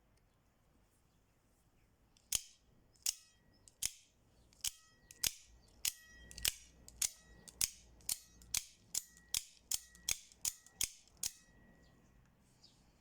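About seventeen sharp metallic clicks, roughly two a second, many leaving a brief ring. This is the blade of a clone Benchmade Infidel 3300 out-the-front automatic knife being fired out and snapped back in with the thumb slider, over and over.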